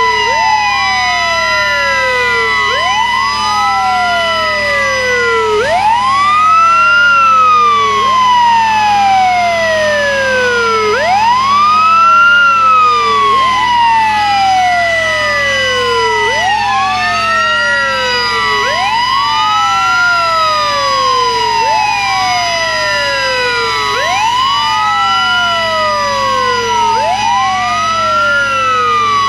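Several fire truck sirens wailing at once and out of step, each rising quickly and falling slowly in pitch, over a steady held siren tone. About 17 seconds in, the steady tone dips and climbs back up.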